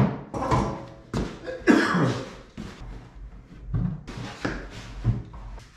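Wooden cabinet parts being handled and shifted: a plywood cabinet carcass and oak face-frame panels knocking and thudding together, with short scrapes, in an irregular series of about seven knocks, the loudest about two seconds in.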